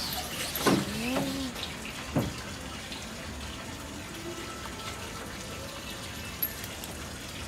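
Steady rush of running water, with a short exclaimed human voice about a second in and a sharp knock about two seconds in.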